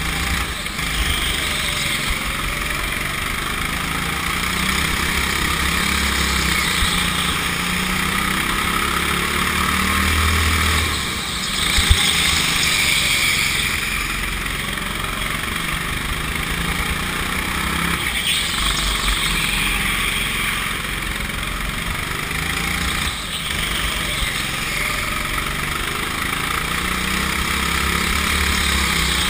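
Go-kart engine running at speed, heard from the kart's own onboard camera, its note rising and falling through the laps, with a brief knock about twelve seconds in.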